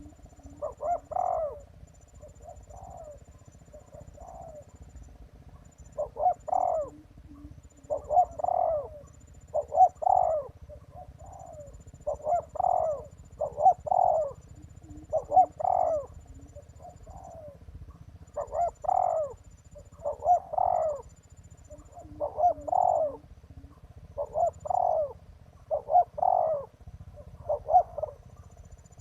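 Spotted dove cooing: a short phrase of two or three coos repeated about every two seconds. A faint, thin high tone comes and goes in the background.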